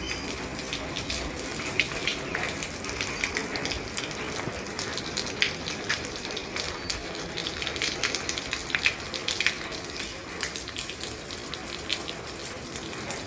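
Steady rain on an old roof: an even hiss with many sharp drop impacts scattered irregularly through it.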